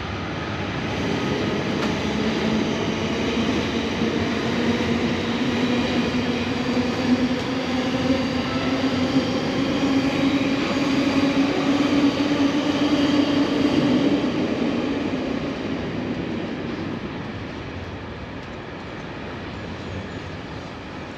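A train passing, its engine drone slowly rising in pitch and growing louder, then fading away over the last several seconds.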